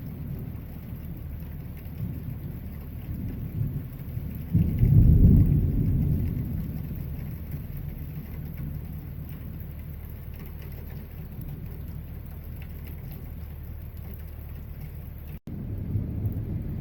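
Thunderstorm: steady rain with rolling thunder. A loud, deep rumble about four and a half seconds in fades over a couple of seconds, and another rumble starts near the end. The sound cuts out for an instant shortly before the end.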